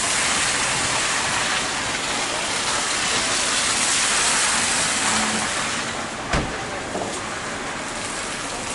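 Steady rushing street noise with a wet hiss, and one sharp knock about six seconds in.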